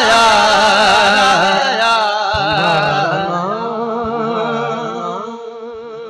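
A man singing a naat through a microphone and sound system, drawing out the last syllable of a line in one long wavering note that slowly fades.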